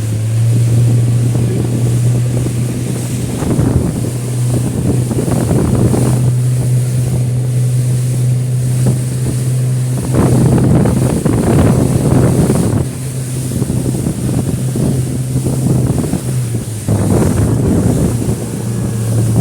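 Suzuki outboard motor running with a steady low drone as the boat moves over rough sea, with surges of wind on the microphone and wash of waves.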